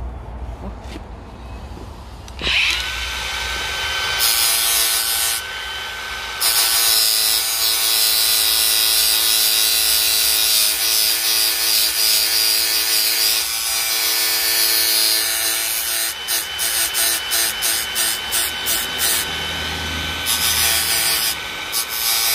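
Hand grinder with a sanding disc grinding the cutting edge of a brush cutter blade. Its motor starts about two and a half seconds in and keeps up a steady whine under a rasping grind. Later the grinding comes in a run of short strokes as the disc is worked on and off the blade.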